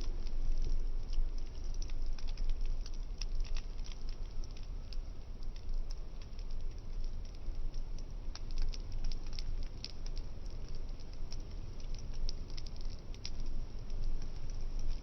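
Burning cardboard crackling: many small irregular pops and snaps over a steady low rumble.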